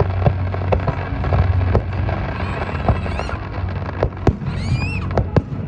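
Fireworks going off in a dense string of sharp bangs and crackles over a steady low rumble, with a brief wavering high whistle about four and a half seconds in.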